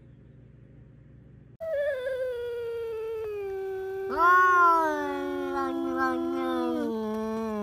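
Two cats yowling at each other face to face: long, drawn-out wails that slowly fall in pitch. The first starts about a second and a half in, and a louder wail joins about four seconds in; the two overlap to the end.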